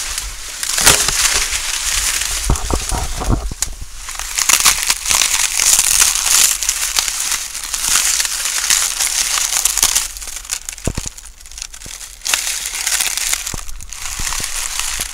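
Dry corn leaves and husks rustling and crackling in an irregular run as someone pushes through rows of mature, dried-down corn plants, the leaves brushing close past the microphone, with scattered sharp snaps.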